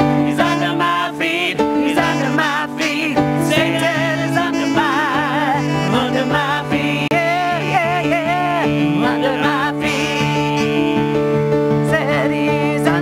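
Live gospel worship song: a man and a woman singing into microphones over sustained keyboard chords, the voices wavering with vibrato.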